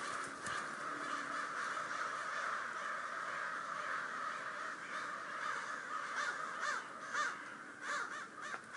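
A flock of crows cawing together, many overlapping caws forming a continuous chorus, with a few louder single caws standing out near the end.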